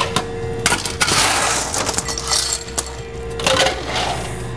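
Ice cubes clinking and clattering into a pint glass as it is filled with ice, with a dense burst of rattling from about a second in.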